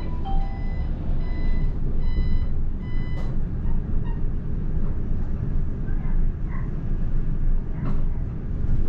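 Steady low rumble of vehicle and road noise while moving along a street, with a series of short electronic warning beeps, like a reversing alarm, about two a second, that stop about three seconds in.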